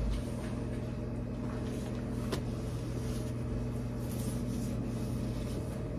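Steady electric hum with a faint hiss under it from a glass-top electric cooktop turned up to heat a pan of gravy toward a simmer. There is one faint tick about two seconds in.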